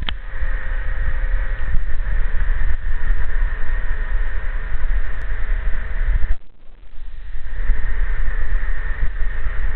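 Egg-collection conveyor and its drive machinery running steadily, a continuous mechanical noise with a low rumble and a faint hum. The noise drops away for about a second partway through, then returns.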